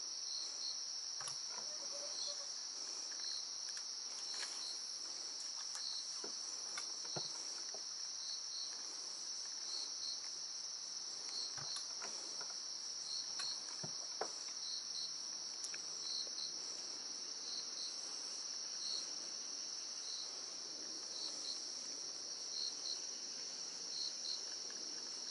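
A steady, high-pitched insect chorus, with one insect chirping in short pulses, often in pairs, every second or so. A few faint knocks come through underneath.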